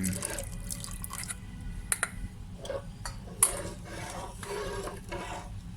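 A spoon stirring a soupy sauce in a cooking pot: wet sloshing swishes with a few sharp clinks of the spoon against the pot.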